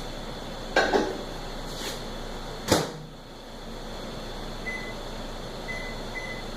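Microwave oven being loaded and set: knocks as the bowl goes in, the door shut with a clunk almost three seconds in, then short keypad beeps as the cooking time is entered.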